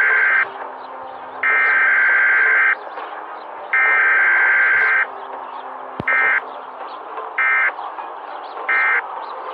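Electronic alarm signal: three long, steady high-pitched beeps of about a second each, then three short beeps, the same tone each time, over a background hiss. A single sharp click sounds just before the short beeps.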